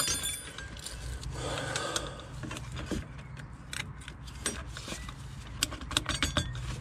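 Clicks, ticks and light rattles of a fuel filter's retaining clip and bracket being worked into place by hand, with a sharp snap at the start, over a steady low hum.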